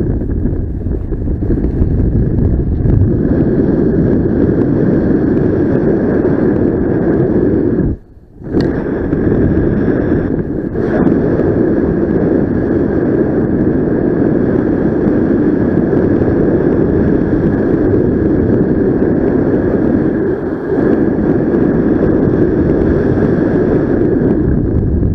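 Wind rushing over the microphone in paraglider flight: a loud, steady low rumble that drops out briefly about eight seconds in.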